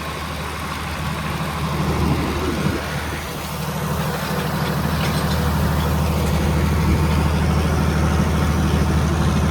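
Tractor engine running steadily under load while pulling a hay tedder, its low hum growing a little louder partway through.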